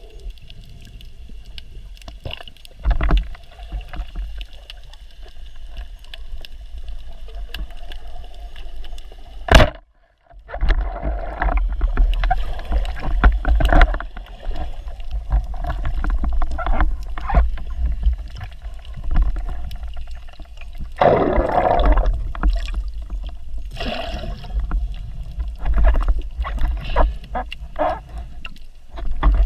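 Underwater sound heard through a diver's camera: a steady low rumble of water with scattered knocks and clicks. About nine and a half seconds in comes one sharp, loud crack, the speargun firing its shaft.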